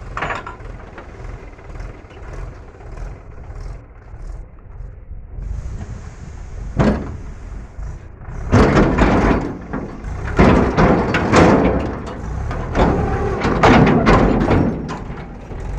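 Backhoe loader's diesel engine running steadily under a knock about seven seconds in, then several loud bursts of clattering and crashing as loads of murum, gravelly soil and stones, pour from the bucket into a metal tractor trolley.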